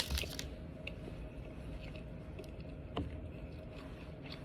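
Faint steady low background hum with a few light clicks, and one sharper tap about three seconds in.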